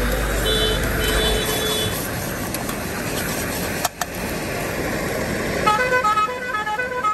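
Busy street traffic noise with a vehicle horn tooting for about a second and a half, about half a second in. Near the end comes a quick run of short stepped beeping notes, like an electronic horn tune.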